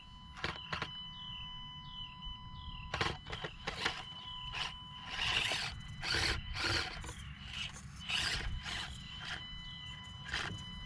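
Axial SCX24 micro crawler's small electric motor whirring in short bursts, its tires scrabbling and scraping over the obstacles, as the wide-axle Jeep, which will not steer, hangs up on the course. A faint steady high whine and a faint falling chirp, repeated, run underneath.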